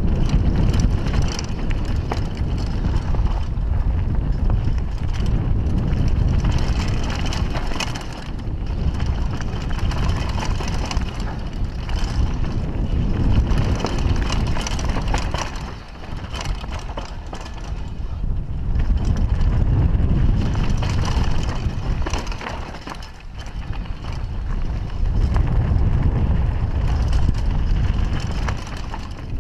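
Kona Coiler downhill mountain bike descending a rough dirt and stony trail, heard from a helmet-mounted camera: constant wind rumble on the microphone, with the tyres crunching over loose ground and the bike rattling and knocking over bumps. The noise eases briefly twice where the pace drops.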